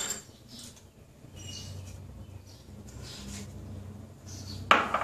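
Kitchen room tone: a low steady hum with a few faint high chirps, then one sharp knock near the end.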